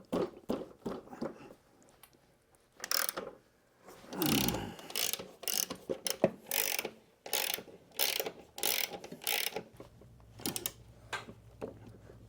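Hand socket ratchet clicking in repeated short strokes as the bolts holding a lawnmower engine to its deck are unscrewed, with a brief pause early on.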